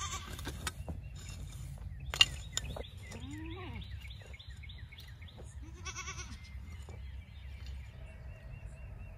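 Goats bleating, once near the start and again about six seconds in, over the chop and scrape of a hoe digging a furrow in rocky clay soil, with one sharp knock about two seconds in.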